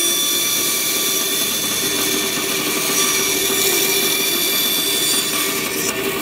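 Bandsaw running with a steady whine, its blade cutting a tight curve through plywood along a row of relief cuts so the waste pieces between them break away.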